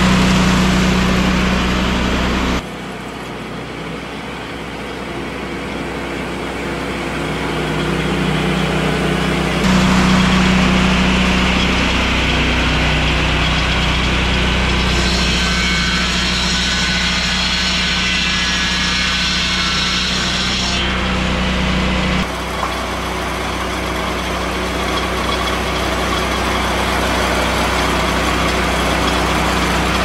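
Lucas Mill portable swing-blade sawmill's engine running steadily at speed as the saw carriage is pushed along a log. The sound jumps abruptly in tone and loudness three times.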